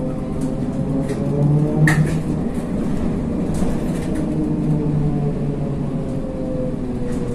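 The inside of a ZiU-682G trolleybus on the move: a steady running rumble with the motor's pitched whine drifting slowly up and down in pitch. A single sharp clack comes about two seconds in.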